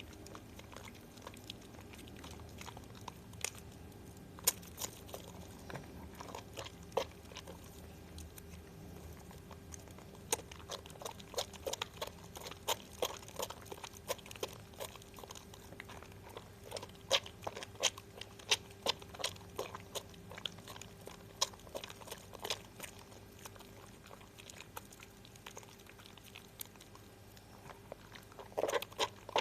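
Wet squishing and crackling of a lemon Harmony bar soap being lathered, a run of sharp, irregular squelches and pops that grows busier about ten seconds in, over a faint steady hum.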